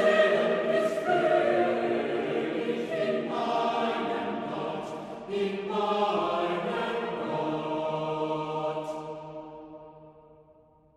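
Choir singing slow, sustained chords, fading out over the last two seconds.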